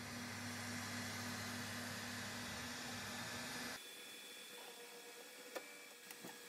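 FDM 3D printer running: a faint steady fan hiss with a low hum. After a cut about four seconds in it is quieter, with faint whining tones that change pitch and a single tick near the end.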